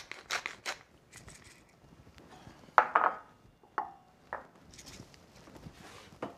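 Wooden pepper mill grinding in quick regular clicks for under a second, then a few sharp clanks of a metal utensil against the pan, the loudest about three seconds in, with two smaller ringing knocks about a second later.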